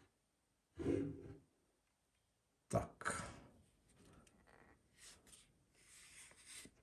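A man's short sigh about a second in, then faint handling noise as the DJI Osmo Mobile 6 gimbal's built-in extension rod is pulled out.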